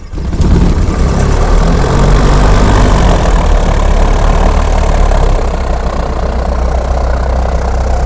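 Light aircraft's piston engine catching and running with a steady, loud propeller drone, easing slightly lower about five seconds in.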